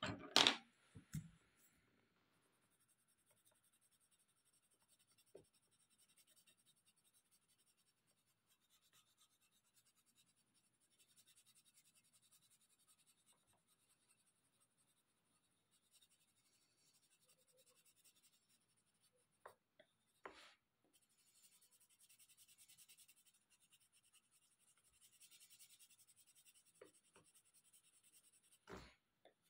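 Faint scratching of a coloured pencil shading on paper, coming in stretches. A few short knocks are heard, the loudest right at the start.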